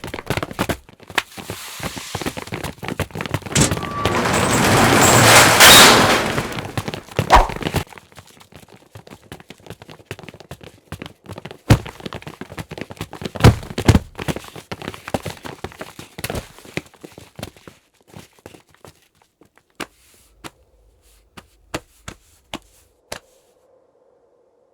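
A run of action sound effects: many sharp hits, a noise swell that builds to a loud peak about six seconds in, then a few heavy impacts and scattered clicks that thin out, with a faint steady tone near the end.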